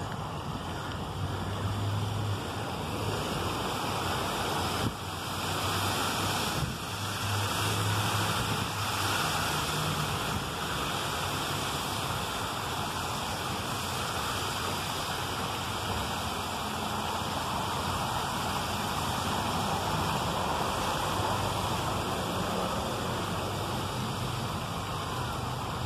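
Fountain water spilling over a stepped granite edge: a steady, continuous rushing splash.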